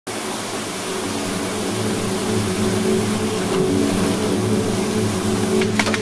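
Waterfall rushing steadily, a loud hiss over a low rumble. A few sharp knocks come near the end.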